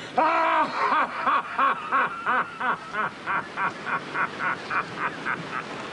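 A voice laughing: one long loud opening note, then a steady string of short 'ha' pulses, about three to four a second, slowly growing fainter.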